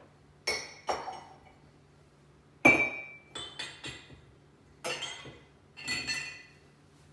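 Dishes and glassware clinking as they are taken out of a dishwasher and set down, about nine separate clinks. The loudest, a little under three seconds in, has a short ring like glass.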